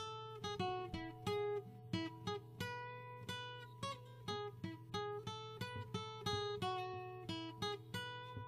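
Acoustic guitar music, notes picked one at a time, a few per second, over a held low note. It cuts off suddenly at the very end.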